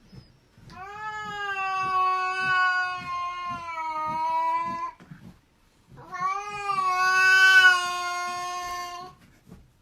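A cat yowling: two long drawn-out calls, about four and three seconds long, each holding its pitch and sinking slightly toward the end.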